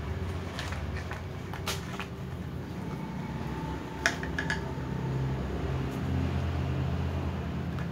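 Cats eating from glass bowls: a few sharp clicks and clinks, the loudest about four seconds in, over a steady low mechanical hum.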